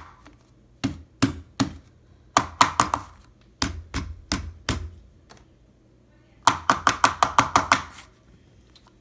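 Bursts of sharp taps or knocks on a hard surface: a few spaced strikes, then a fast run of about eight strikes some six and a half seconds in.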